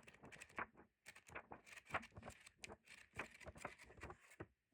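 Faint, irregular rustling and small clicks of a hardcover book's thick paper pages being turned and handled.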